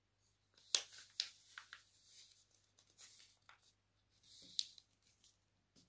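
A sheet of paper being folded and creased by hand, rustling and crackling in short bursts, with the sharpest crackles about a second in and a brief swish a little past four seconds.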